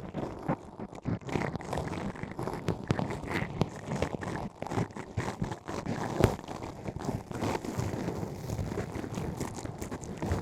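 Close-up ASMR ear-cleaning sounds: an ear pick scraping and rubbing deep in an ear canal, a continuous crackly scratching with many small sharp clicks.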